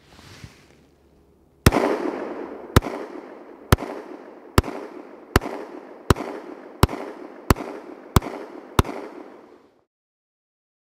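Ten shots from a Glock 43X 9mm pistol, starting about a second and a half in, fired about one a second and quickening slightly toward the end. Each shot trails off in a long echo.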